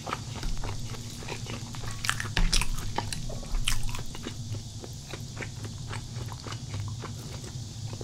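Close-miked chewing and biting of food, a run of small wet clicks several times a second, with louder crisp crunches about two seconds in and again near the middle.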